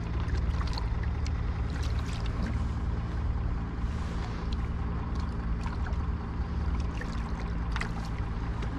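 An engine running steadily with a low, even hum, with scattered light clicks over it.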